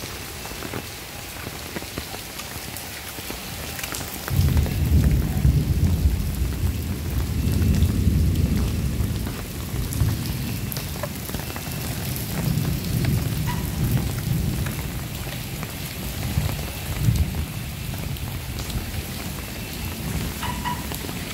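Rain falling steadily. About four seconds in, a low rumble of thunder sets in and rolls on, swelling and easing.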